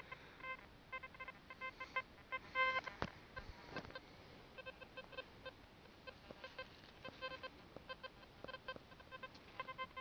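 XP ORX metal detector giving short, faint beeping signal tones over and over at irregular intervals, with a single knock about three seconds in.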